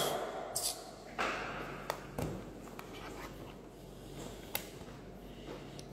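A pause in a man's speech: low room noise and a steady hum, with a few faint clicks and short puffs of breath.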